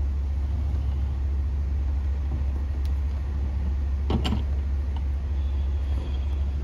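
A steady low hum, with faint clicks and a brief rising squeak-like sound about four seconds in as an aluminium cylinder head is turned around on its head stands.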